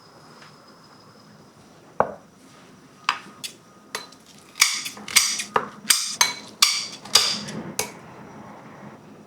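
Kitchen utensils knocking and clinking against dishes: a single sharp knock about two seconds in, then a quick run of about a dozen sharp, ringing clinks from about three to eight seconds.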